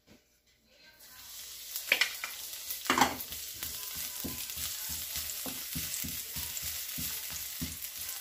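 Sliced onions sizzling in hot oil in a frying pan, the sizzle setting in about a second in as they go into the pan, with two louder clatters as they drop in. A wooden spoon then stirs them, knocking softly and repeatedly against the pan under the steady sizzle.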